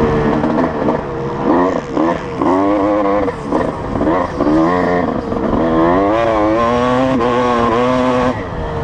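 Honda CR250 single-cylinder two-stroke motocross engine revving hard under riding load. Its pitch climbs and drops several times as the throttle and gears are worked, then makes a longer climb that is held high before falling off near the end.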